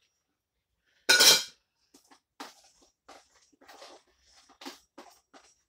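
A steel slotted spoon set down on a ceramic plate with a loud clatter about a second in, followed by a string of light clinks and knocks of kitchen utensils and dishes.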